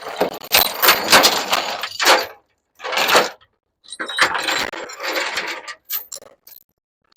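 Metal clattering and jingling in three uneven bursts, the longest at the start and another from about four seconds in, with short silent gaps between them.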